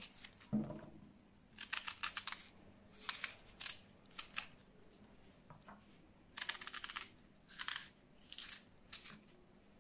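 Knife slicing through a raw red onion held in the hand: short runs of crisp, crunchy cutting strokes, with a soft knock about half a second in.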